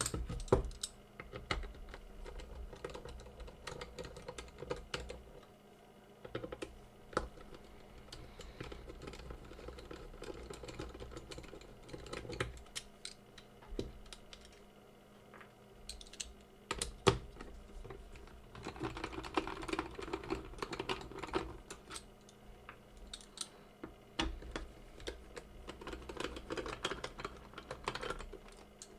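Irregular light clicks and taps, with one sharper knock about seventeen seconds in; the clicking thickens around twenty seconds in and again near the end.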